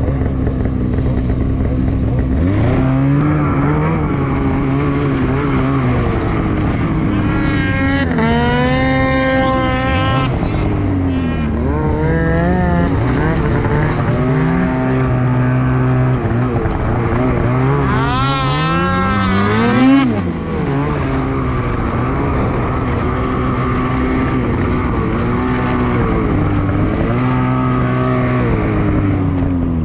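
Polaris Switchback Assault 850 snowmobile's two-stroke twin engine revving up and down while riding. Two spells of much higher revving come about eight and eighteen seconds in, the second climbing to a peak near twenty seconds.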